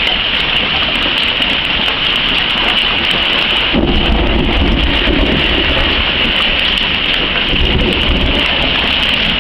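Hail and heavy rain pelting down in a thunderstorm, a dense steady clatter. A low rumble of thunder comes in about four seconds in and dies away over the next four seconds.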